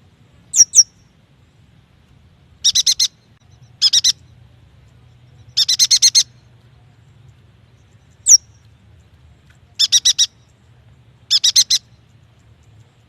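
Yuhina song: clusters of three to seven rapid, high chattering notes, a second or so apart, broken by sharp, high, downward-sliding single notes about half a second in and again near the end.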